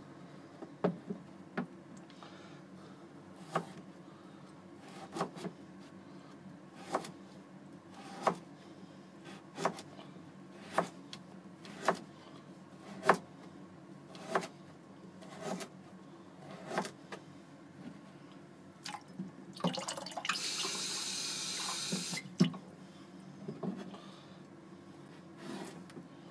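Kitchen knife slicing a burdock root into thin rounds on a plastic cutting board: a sharp chop about every second or so. Late on, a brief hiss lasts about two seconds.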